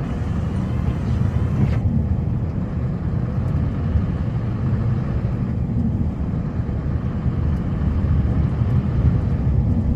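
Snowplow vehicle's engine running with a steady low rumble while it plows the road, with a brief hiss in the first couple of seconds.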